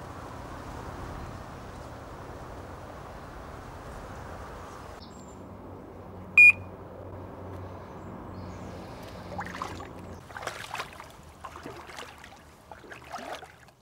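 An electronic carp bite alarm gives one short, high-pitched beep about six seconds in, the loudest sound here. Before it there is a steady outdoor background. Near the end come scattered rustles and light knocks.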